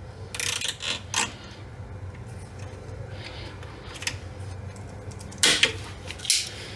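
Nylon zip tie being pulled tight, heard as a few short ratcheting zips: about half a second in, about a second in, and again near the end. A low steady hum runs beneath.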